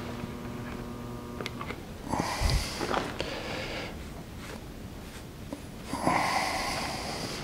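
A dust brush sweeping steel drill chips off a freshly drilled truck frame rail in short scratchy bouts, about two and six seconds in. A faint steady hum dies away about two seconds in.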